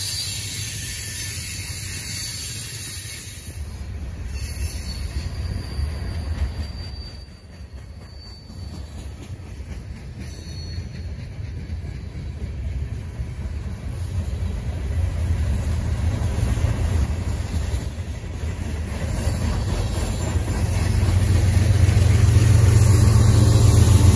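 BNSF freight train rolling past: a steady low rumble of freight cars on the rails, with a few faint high wheel squeals. The rumble swells over the last few seconds as the diesel locomotive at the rear of the train draws level.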